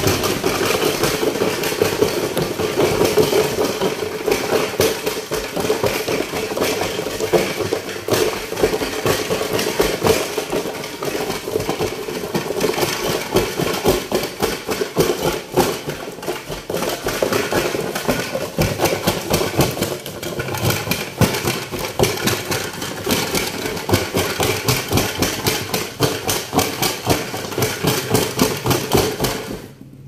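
Small motor of a homemade cardboard toy washing machine running with a fast, steady rattling clatter, then cutting off suddenly.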